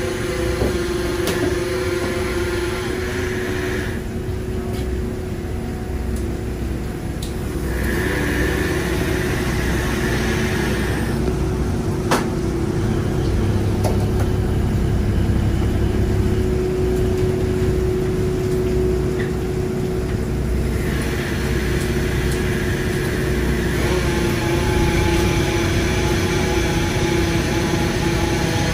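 An engine running steadily, with a constant low hum and rumble.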